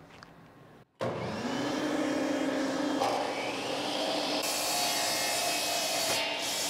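Compound miter saw motor spinning up with a rising whine about a second in, then the blade cutting down through a white oak deck beam, trimming it to length at an angle; the cut turns harsher and hissier a little after the middle.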